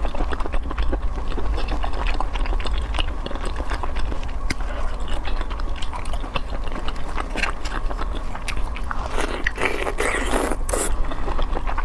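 Close-miked mukbang eating: chewing with many crisp crackles and crunches, thickest about nine seconds in, over a steady low hum.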